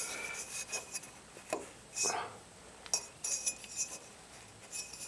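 A few short metallic clinks and scrapes, scattered and irregular, as a hand works at the four-cylinder engine of an old military generator, trying to turn it over by hand to check that it is not seized.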